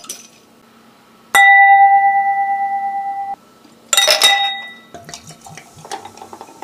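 Glass struck and ringing with one clear tone for about two seconds before cutting off suddenly, then a second clink of glass. Near the end, bottled beer is poured into a stemmed glass, running and fizzing as it foams.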